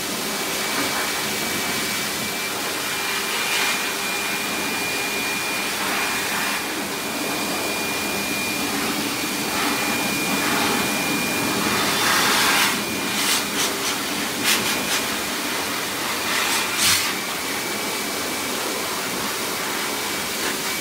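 A dog groomer's high-velocity dryer blowing a steady rush of air with a thin whine through a wet, matted coat. The rush surges louder in several short gusts from about twelve to seventeen seconds in as the nozzle moves over the coat.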